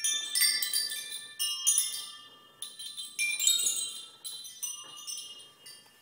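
Coloured chime tubes hanging under a moving swing seat knock together and ring, a tinkling cluster of high ringing notes with each jostle, several clusters in a row that die away near the end.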